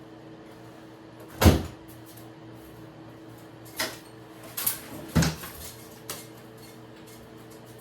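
Kitchen cupboard doors and household items knocking as things are put away: one loud bang about a second and a half in, then four lighter knocks over the next few seconds. A steady low hum runs underneath.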